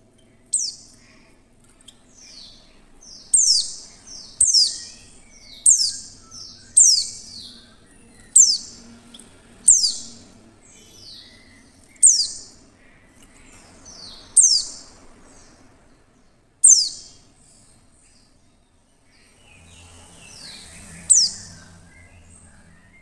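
A female white-eye (pleci) giving sharp, high chip calls that slide quickly downward in pitch, about eleven in all, one every second or so, with a pause of a few seconds before a last call near the end. This is the female call that keepers play to draw a male white-eye into singing.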